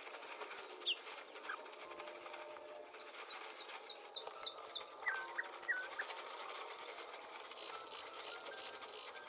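Birds chirping and calling: scattered short high chirps, with a quick run of about six falling notes a few seconds in.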